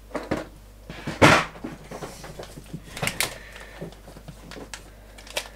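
Handling noises while rummaging for spare bulbs: a loud knock about a second in, then scattered small clicks and the rustle of a plastic parts bag being handled.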